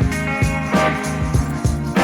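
Background music with a steady beat, bass and guitar, in a funk style.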